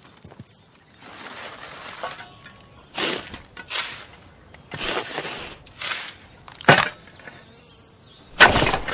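Shovel digging into a mound of loose soil: a run of scrapes and scoops about a second apart as dirt is dug and tossed, with the loudest, sharpest strike near the end.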